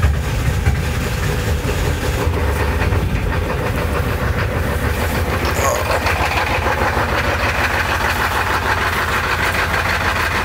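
Ford F-250's 7.3-litre IDI V8 diesel idling with a steady diesel clatter, running cold just after a cold start in snow. It is heard first from inside the cab, then from outside the truck after about six seconds.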